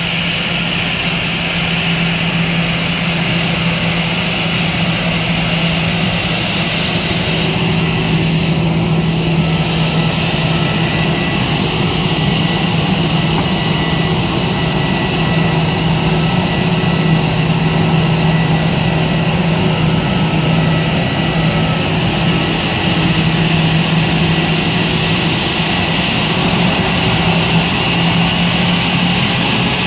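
Turbofan engines of a Philippine Airlines Airbus A321 turning at taxi idle as the jet rolls onto its parking stand: a steady whine over a low hum.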